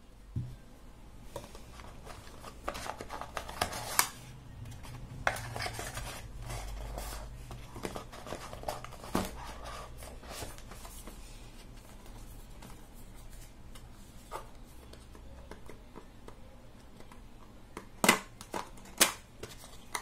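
Cardboard and paper packaging handled by hand: box flaps lifted and folded open, with rustling, scraping and scattered sharp taps, the two loudest about a second apart near the end.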